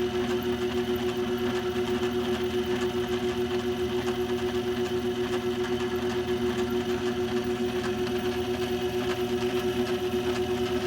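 Craftsman 109 bench lathe running steadily on a salvaged treadmill DC motor with the power feed engaged: a constant hum and whine with a fast, even pulsing throughout.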